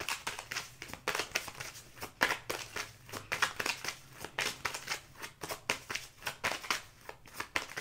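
A tarot deck shuffled by hand: quick, irregular crackling clicks of the cards riffling against each other, several a second.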